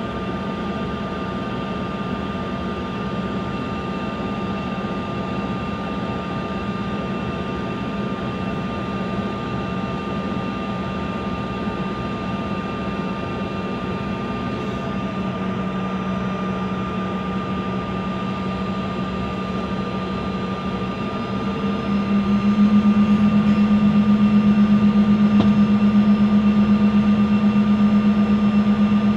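Airliner engines heard from inside the cabin while the plane taxis: a steady hum with a droning low tone and a fainter high whine. About 22 s in the engines spool up and the sound grows clearly louder.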